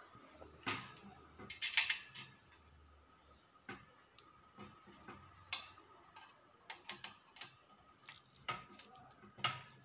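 Light metallic clicks and taps, irregular and scattered, as a small screw is fitted by hand into a stainless steel shoe-rack frame.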